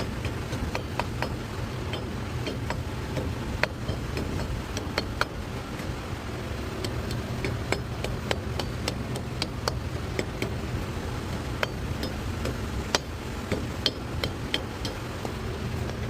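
Irregular metallic clicks and taps of hand tools and parts being handled on a vehicle, over a steady low shop hum.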